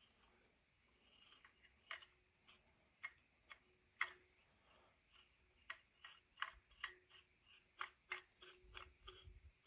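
Hand tap being turned in fine, already-cut threads of a brake-mount bolt hole, cleaning them rather than cutting new ones: faint, irregular metallic clicks and ticks.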